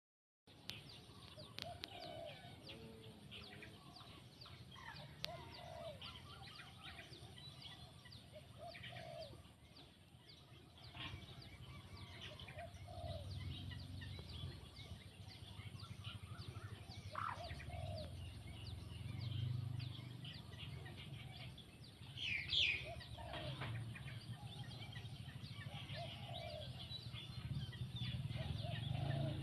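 Purple swamphens calling: short, low clucking notes repeated every few seconds, with one louder, sharper call about twenty-two seconds in, over a low rumbling background.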